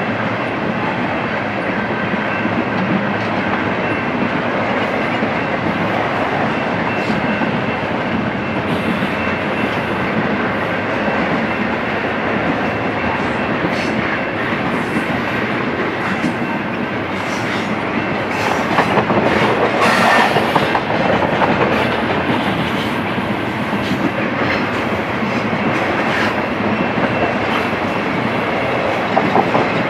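Double-stack intermodal freight train rolling past: a steady rumble of steel wheels on the rails with clicking and clanking as the cars go by. It gets louder with sharper clanks about twenty seconds in.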